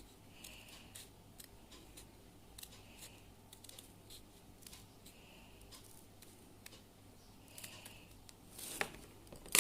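Scissors snipping through cardboard: faint, scattered cuts, with a louder rustle of the cardboard being handled near the end.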